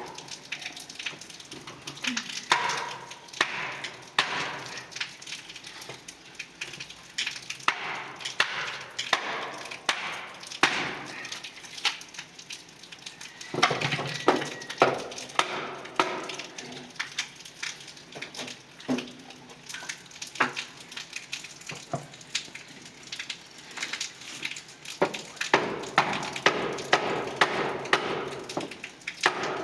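Irregular wooden knocks and chopping strokes, turning into a fast run of chops near the end.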